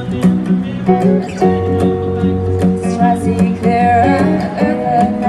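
Instrumental break of an upbeat pop song: strummed guitar over a steady bass line, with no words sung.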